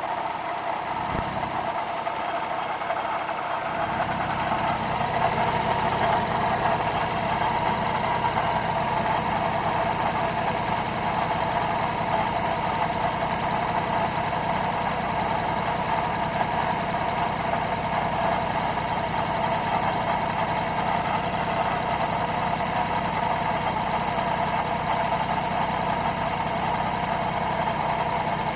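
Daihatsu Tanto (LA600-series) three-cylinder kei-car engine running steadily at idle, with a constant higher-pitched drone over the engine note: the abnormal noise the owner is questioning. The low end of the engine sound fills in and grows a little louder over the first few seconds, then holds steady.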